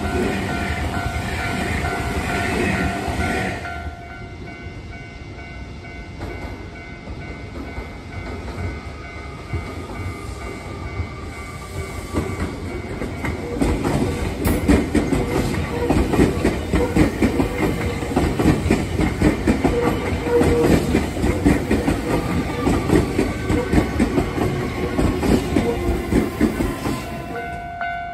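Electric commuter train passing close by, its wheels clattering over the rail joints in a fast, irregular run of knocks that grows loud about halfway in and stays loud until it cuts off near the end. At the start there is a shorter loud stretch with a steady whine, then a sudden drop to quieter running.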